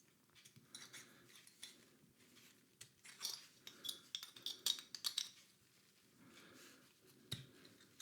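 Faint clicks and taps of a Glock 17 Gen 4 BB pistol's small plastic and metal parts being handled and fitted together, thickest between about three and five seconds in, with a single knock near the end.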